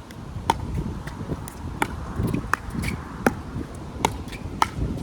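A pickleball rally: sharp pops of paddles hitting the plastic ball, about seven of them at a steady back-and-forth pace, with wind rumbling on the microphone.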